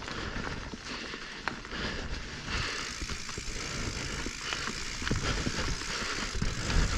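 Specialized Stumpjumper Evo full-suspension mountain bike rolling over rocky singletrack: tyres crunching on dirt and rock, with frequent clicks, knocks and rattles from the bike and a low rumble. It gets louder and rougher from about five seconds in.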